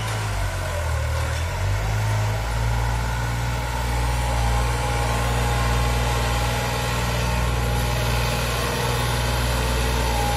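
A 55 hp New Holland tractor's diesel engine running steadily, a constant low drone, as it pulls a 15-tine cultivator through the soil.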